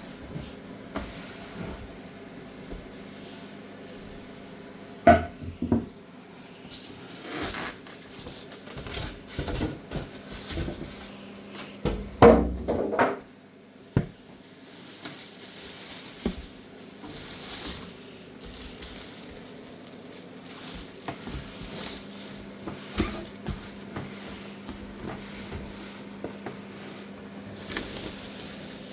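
Unpacking noises: a new microwave oven and its packaging being handled, with scattered knocks and rubbing and louder clattering about five and twelve seconds in, over a steady low hum.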